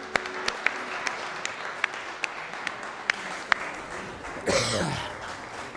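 Audience applauding, with sharp individual claps standing out over the general clapping. A brief voice cuts in about four and a half seconds in.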